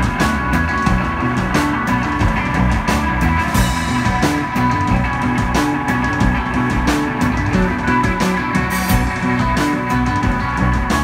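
Live instrumental psychedelic rock: electric guitar, bass and a drum kit playing together, with sustained guitar tones over a steady beat of drum and cymbal hits.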